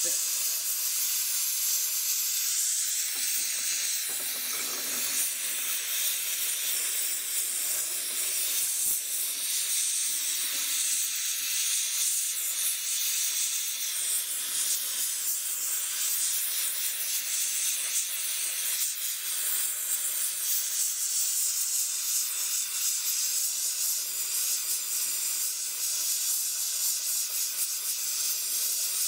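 MAPP gas and oxygen torch flame hissing steadily as it heats a ceramic crucible of molten sterling silver.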